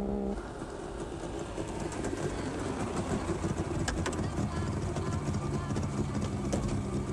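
Classic Fiat 500's small air-cooled two-cylinder engine running as the car drives, a steady low engine note that starts to fall away at the very end as it slows.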